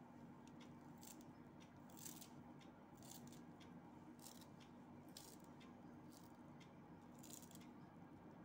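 Near silence with a low steady hum and a few faint, irregular soft rustles as chopped coriander leaves are sprinkled by hand over a steel bowl of puffed-rice bhel.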